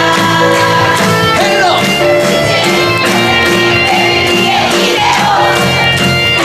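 Live acoustic band music with guitar, playing at a steady beat under held instrumental tones.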